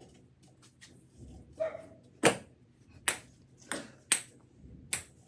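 A ping-pong ball bouncing on a hard floor after a missed throw: a string of sharp, ringing clicks starting about two seconds in, roughly one a second and coming gradually closer together.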